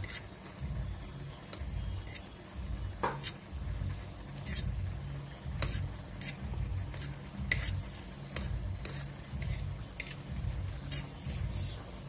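A spoon stirring and mashing crumbly grated boiled egg into cottage cheese on a plastic plate. Light irregular clicks of the spoon against the plate, about one or two a second, ride over a low rhythmic thudding from the mixing strokes.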